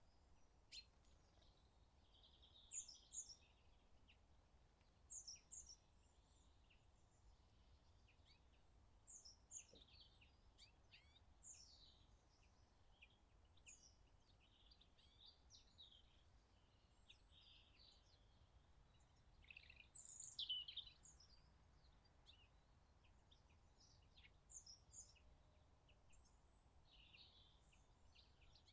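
Faint birdsong: scattered short, high chirps and twitters from small birds over a low hush, loudest about two-thirds of the way through.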